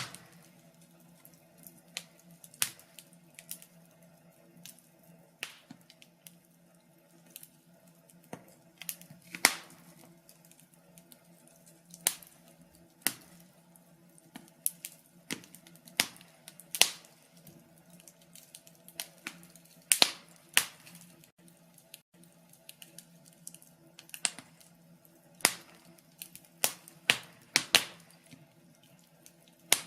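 Logs burning in a fireplace, crackling with irregular sharp pops and snaps, sometimes several in quick succession and sometimes seconds apart, over a faint steady low hum.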